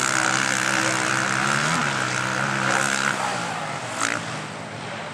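Race quad (ATV) engine running hard as it passes close by, its pitch briefly rising and dropping back about one and a half seconds in, then falling away after about three seconds. A short sharp click near the end.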